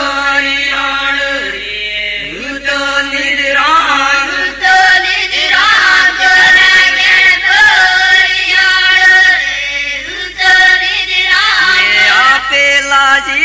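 A group of voices chanting a devotional folk song together, loud and continuous, the melody rising and falling in repeated phrases.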